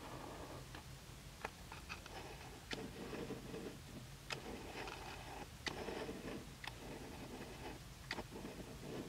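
Faint handling noise from a handheld Canon Rebel T4i: about eight sharp ticks and clicks at uneven gaps, with soft rubbing between them, over a low steady hum.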